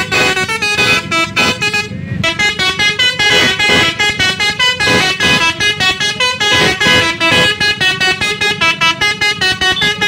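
A tour bus's Basuri telolet horn playing a fast melody of short notes that jump quickly in pitch, with a brief break about two seconds in.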